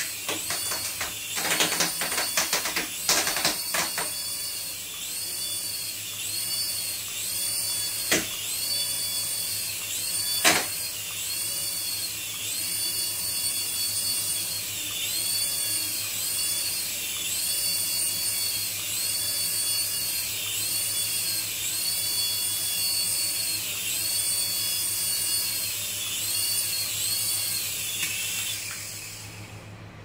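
Small toy helicopter's electric motors and rotors whining in flight, the pitch swelling up and down over and over as it hovers. A few sharp knocks are heard, two of them in the middle. The whine cuts out just before the end.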